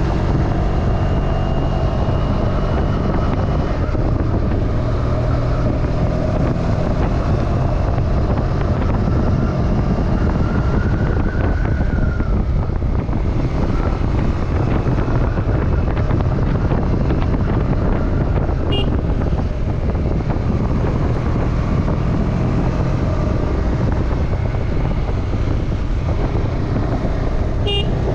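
KTM 250 Duke's single-cylinder engine running steadily under way, with wind rushing over the helmet-mounted camera microphone. The engine note shifts a little in pitch as the throttle changes.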